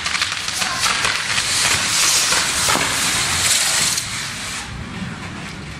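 Fireworks on a torito, a bull-shaped pyrotechnic frame, burning with a dense hissing and crackling as it sprays sparks. The crackle eases off about four seconds in, leaving a softer hiss.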